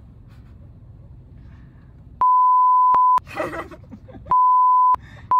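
Low, steady car-cabin road hum, then an edited-in 1 kHz censor bleep that mutes everything else, sounding three times at about two, four and five seconds in, each under a second long. A brief loud burst of voice falls between the first two bleeps.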